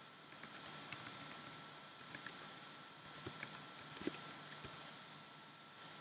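Typing on a MacBook keyboard: faint key clicks in several quick bursts with short pauses between them.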